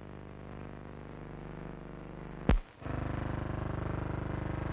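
Steady electrical hum and buzz of an old film soundtrack. A sharp click comes about two and a half seconds in, a film splice at a cut between shots, and the hum then returns louder.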